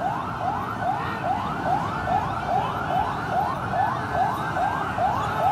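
Police vehicle siren in a fast yelp, its pitch sweeping upward about three times a second without a break, over a low background rumble.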